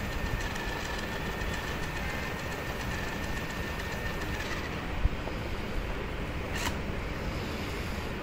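Toy remote-control stunt truck's electric wheel motors running with a steady whir. A faint high tone fades out about halfway, and there is a short knock about five seconds in and a sharp click shortly after.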